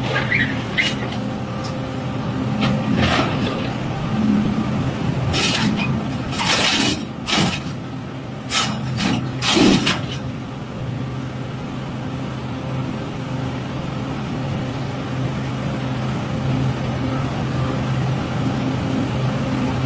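Excavator's diesel engine running steadily, with a cluster of short, harsh noises about five to ten seconds in.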